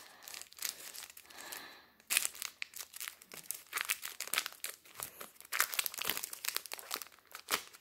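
Hershey's chocolate bar wrapper crinkling as it is unwrapped by hand: a dense, irregular crackle of wrapper handling.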